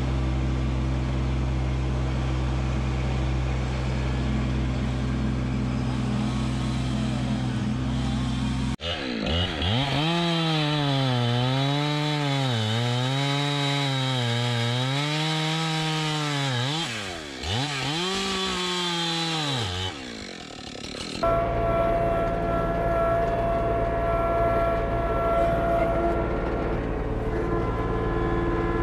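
Kubota LX2610 compact tractor's three-cylinder diesel running steadily for the first nine seconds or so. Then a chainsaw cuts through a log, its pitch rising and falling again and again as it revs and bogs in the cut, before stopping about twenty seconds in. The tractor engine is then heard running again from inside the cab.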